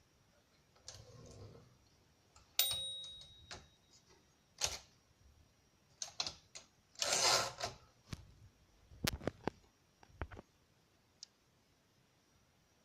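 Remington Travel-Riter portable typewriter mechanism: a single ringing bell-like ding about two and a half seconds in. About seven seconds in comes a longer rasping sweep, like the carriage being returned, followed by a few scattered clicks of the machine.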